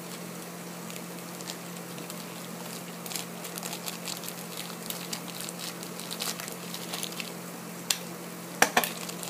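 Light crinkling and rustling of a foil blind-bag packet and a small plastic toy being handled. A few sharp clicks come near the end, over a steady low hum.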